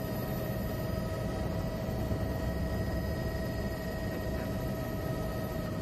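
Steady engine drone inside the cabin of a small aircraft in flight, a deep rumble with a constant whine of several fixed pitches on top.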